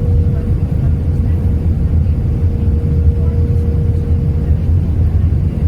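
Steady low rumble of an Airbus A319's engines and airflow heard inside the cabin, with a constant hum held on one pitch.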